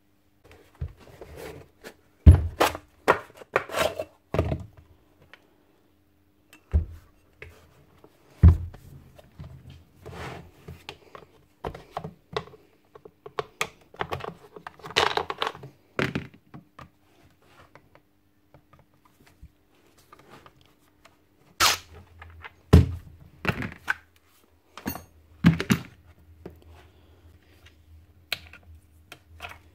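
Irregular knocks and clunks of a heavy Bosch GSH 11 E demolition hammer body being turned over and set down on a workbench, with rattling and scraping of parts and a screwdriver as its housing is taken apart. Several sharp knocks stand out, the loudest about two seconds in, near eight seconds and around twenty-two seconds.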